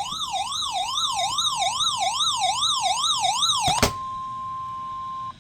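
Electronic siren-style alert tone warbling up and down a little over twice a second. A sharp click just under four seconds in gives way to a single steady tone, the NOAA Weather Radio warning alarm tone that marks a warning broadcast, which cuts off abruptly near the end.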